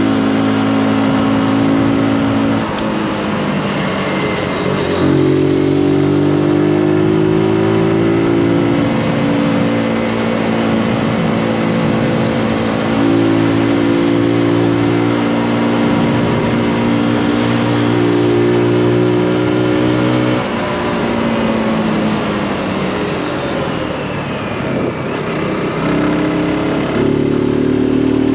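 Zontes G155 motorcycle's single-cylinder four-stroke engine running under load while ridden through bends. The engine note holds steady, then drops away as the throttle comes off and picks back up, three times over, with wind rushing throughout.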